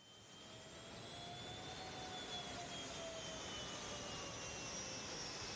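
Airport apron ambience fading in: a steady rush of distant jet engines with faint high whines that slide slowly down in pitch.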